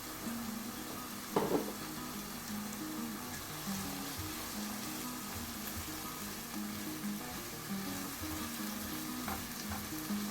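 Food sizzling steadily in hot oil in a frying pan while being stirred, with a short loud knock or scrape of a utensil about a second and a half in. Quiet background music plays underneath.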